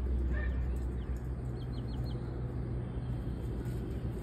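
Small birds chirping: a short call about a third of a second in, then a quick run of four high chirps around two seconds in, over a steady low rumble.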